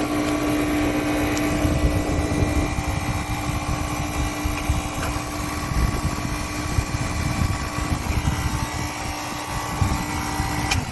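Air compressor running steadily with a constant hum, then cutting off at the very end and dying away. The compressor runs but does not pump air.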